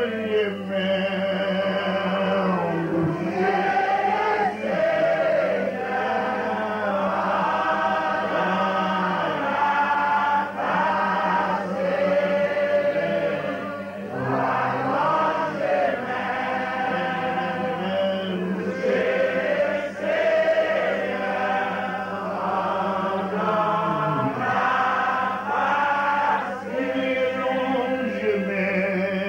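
Worship singing: a man sings into a microphone in long, drawn-out phrases, with a group of voices singing along, over a steady low held tone.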